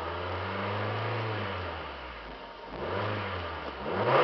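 A 2002 Mazda Protegé5's 16-valve overhead-cam four-cylinder engine being free-revved while parked. The revs climb and ease back over the first couple of seconds, then come two quicker blips, the loudest one at the very end.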